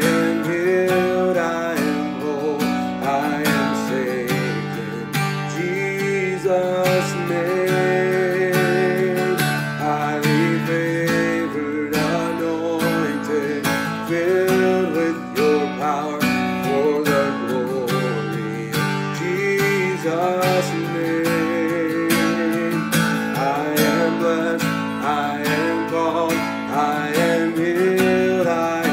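Steel-string acoustic guitar strummed in the key of D, with a man singing over it.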